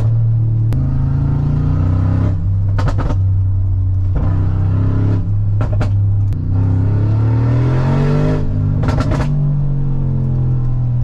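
Mansory G900's 4.0-litre twin-turbo V8 pulling through the gears, heard from the driver's seat. The engine note climbs, drops sharply at an upshift about a second in, and rises again near the end, with brief bursts of crackling several times.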